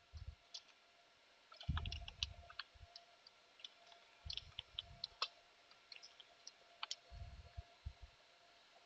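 Faint, scattered clicks of a computer keyboard being typed on, with a few soft low thuds.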